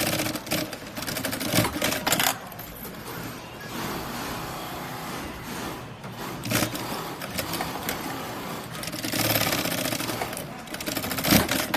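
Industrial sewing machines stitching handbag material, running in short bursts of fast, even needle strokes over a busy factory background.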